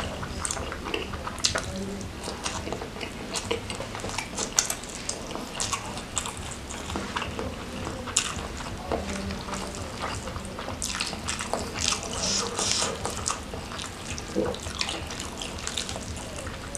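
Fingers tearing apart a whole fried gourami coated in sambal: irregular wet crackles and squelches of crisp fried skin and flesh being pulled off the bones, busier a little past the middle.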